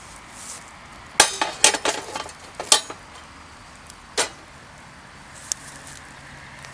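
Hard objects clinking and knocking together: a quick cluster of sharp clinks between one and three seconds in, then a single knock about four seconds in and a faint tick near the end.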